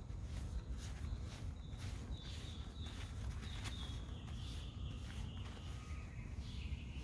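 Paper towel rubbing over a cat's fur in quick repeated strokes, about two or three a second, over a steady low rumble.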